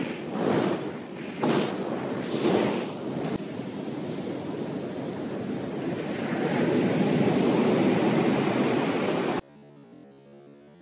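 Ocean surf washing up the beach, with wind on the microphone, the noise swelling and easing several times. About nine seconds in it cuts off abruptly and soft background music takes over.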